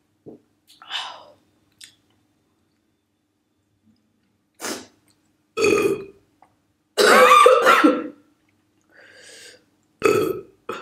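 A woman burping several times. The loudest and longest burp comes about seven seconds in, with shorter ones a little before it and another near the end.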